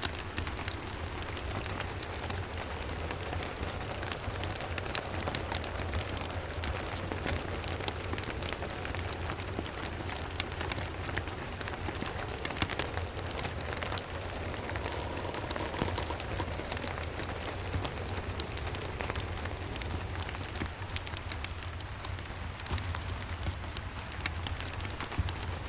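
Steady rain falling, dense with fine patters and small crackling clicks from a wood fire, over a constant low rumble.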